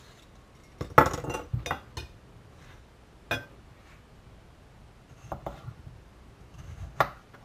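Kitchen clatter during potato peeling: a handful of separate knocks and clinks of utensils and crockery, the loudest about a second in.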